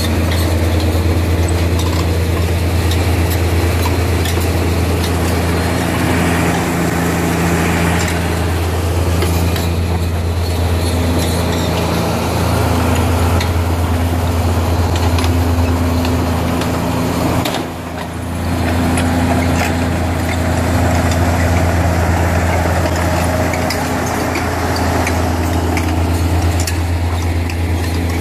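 Diesel engine of a DOK-ING MV-10 tracked mine-clearing vehicle running steadily with a deep, even hum and light clicks over it. It briefly drops in level about two-thirds of the way in, then picks up again.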